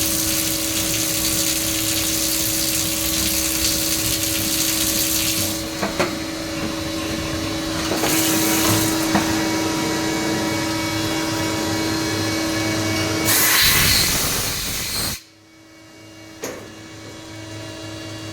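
CNC machine running: a steady hiss over a steady hum. Near the end a louder rush lasts about a second and a half, then the hiss cuts off suddenly, leaving the hum, and a single click follows.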